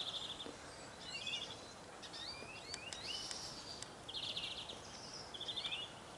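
Songbirds calling over steady outdoor background noise: many short high chirps and quick sliding whistled notes, with three short, rapid buzzy trills at the start, past the middle and near the end.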